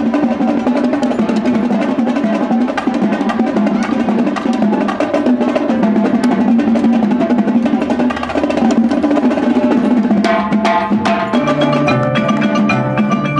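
Marching percussion ensemble warming up: a dense, fast stream of snare and tenor drum strokes and rolls. About ten seconds in, marimbas and other mallet keyboards join with ringing pitched notes.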